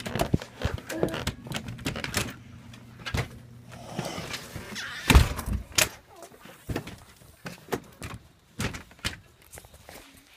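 Aluminium storm door clattering and thudding as it is opened and let fall shut, with the loudest thump about five seconds in. Spaced footsteps on a concrete walk follow.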